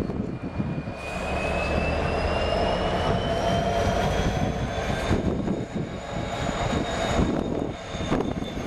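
Class 66 diesel locomotive moving slowly, its EMD two-stroke V12 engine running with a steady low rumble and a high turbocharger whine. The whine rises in pitch over the first few seconds, holds, then eases slightly near the end.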